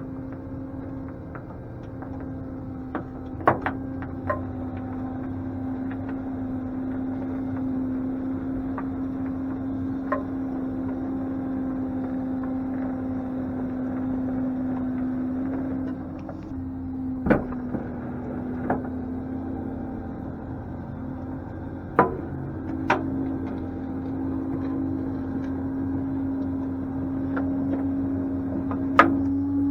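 Rollback tow truck's hydraulic bed being drawn in: a steady hum from the truck's engine-driven hydraulics, with several sharp clanks and knocks from the bed and the car on its wheel skates.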